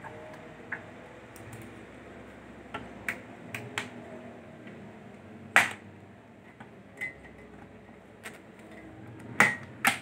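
Scattered light clicks and knocks of a treadmill and its packaging being handled. The sharpest knock comes about five and a half seconds in, and two more come close together near the end.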